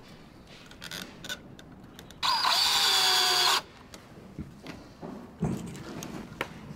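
Cordless drill driving a screw into a wooden stud. It runs once for about a second and a half, its pitch sagging as it starts under load and then holding steady before it stops. Small handling knocks come before and after.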